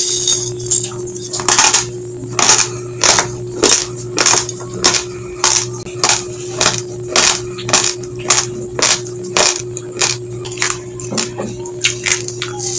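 Raw long-grain basmati rice being chewed: the dry grains crack between the teeth in sharp crunches, about two a second, in a steady rhythm.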